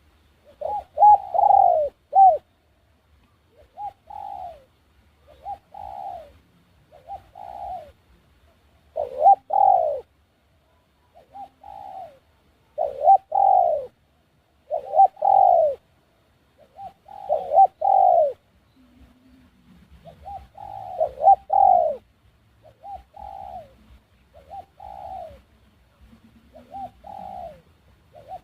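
Doves cooing over and over in short phrases of curved, falling notes, some phrases loud and close and others fainter, with short pauses between them.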